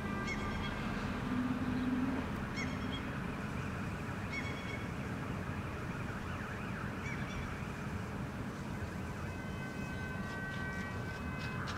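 Steady low urban background rumble. A brief low honk-like tone sounds about a second and a half in, the loudest moment, and a few short bird calls are scattered through.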